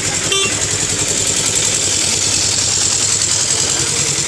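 A vehicle engine running steadily and loudly close by, with an even pulsing throughout. A short, high-pitched beep sounds about a third of a second in.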